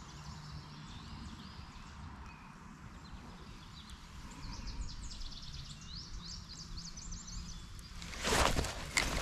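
Quiet outdoor ambience by wooded water: small birds chirping in a quick series of short calls in the middle, over a low steady rumble. About 8 seconds in, a louder short burst of noise rises over it.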